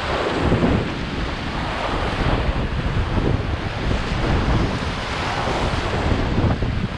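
Rushing whitewater of a river rapid churning around a raft, a loud steady roar of water, with wind buffeting the microphone.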